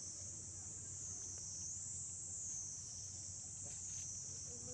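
Insect chorus: a continuous high-pitched buzzing drone that slowly swells and fades, over a steady low hum.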